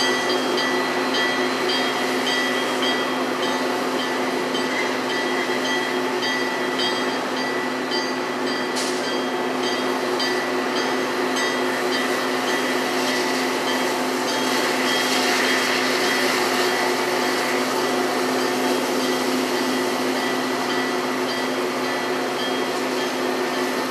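Metra EMD F40PH diesel locomotive running steadily beside its bilevel coach, a constant engine drone with a steady high whine over it. A single short click sounds about nine seconds in.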